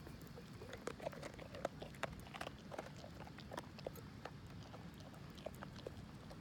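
A Great Dane chewing and gnawing, with a quick run of sharp crunching clicks for the first few seconds that thins out to occasional clicks.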